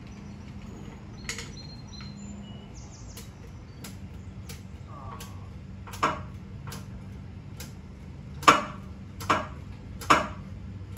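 Metal clanks and clicks from a jack being let down and repositioned under the truck. Scattered faint clicks give way to sharper, ringing clanks, with three in quick succession, under a second apart, near the end.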